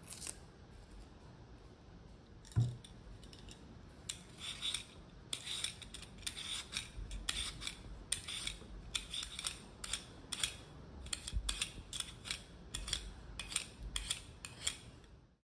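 A Y-peeler's steel blade scraping the skin off a raw potato in short strokes, about two a second, starting about four seconds in. A single dull thump comes a couple of seconds before the peeling starts.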